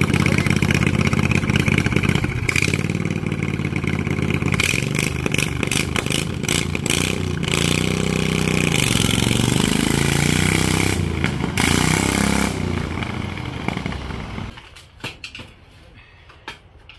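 Lawn tractor engine running, its pitch rising and falling as it is revved. It shuts off about fourteen seconds in.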